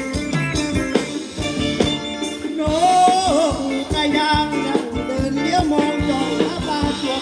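Live Thai ramwong dance music from a band: a steady drum beat under held instrumental notes, with a singer's voice coming in about two and a half seconds in.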